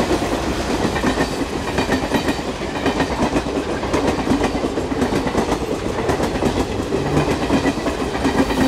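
A train passing close by: a steady, loud rumble and clatter of wheels running on the rails.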